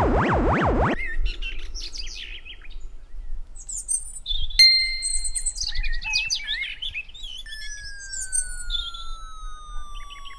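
Electronic music with rapid sweeping tones cuts off about a second in, giving way to birds chirping and singing. A sharp click comes near the middle, and about three-quarters through a long whistle begins, falling steadily in pitch like a dropping object.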